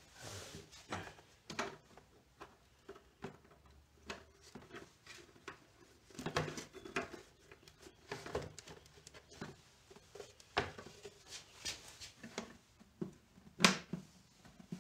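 Scattered light clicks and taps of a screwdriver and small hardware against a hollow plastic scooter trunk as screws are driven into its lid, with a louder knock near the end as the lid is shut.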